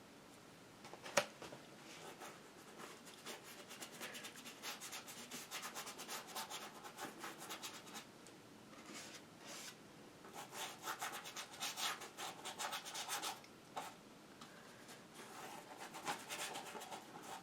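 Bristle brush scrubbing acrylic paint onto a canvas in quick, short strokes, in several spells with brief pauses between; a single light tap about a second in.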